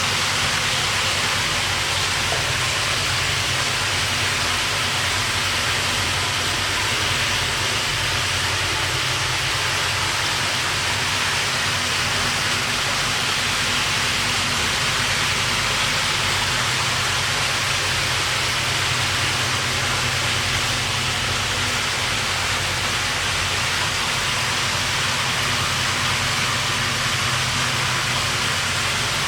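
Steady rush of running water with a low, even hum underneath, the sound of a koi tank's water flow and pump.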